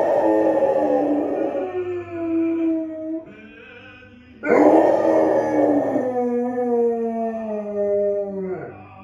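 Golden retriever howling along to tenor opera singing from a TV: two long howls, each sliding slowly down in pitch, the second starting about four and a half seconds in, with the singing and orchestra playing underneath.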